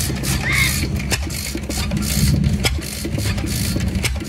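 Witte single-cylinder stationary gas engine running extremely slowly from cold, with sharp clacks about twice a second over a steady low drone. It is turning so slowly that it sounds like a hit-and-miss engine.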